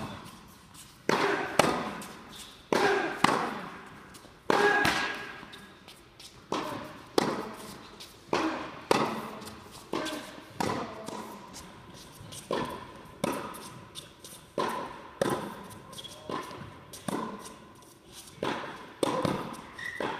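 Tennis rally on an indoor court: sharp racket strikes and ball bounces follow one another roughly every second, each ringing on briefly in the big hall's echo.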